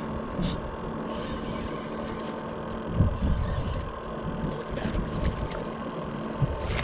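Wind buffeting the microphone over a boat deck, with a faint steady hum that stops near the end and a low thump about three seconds in.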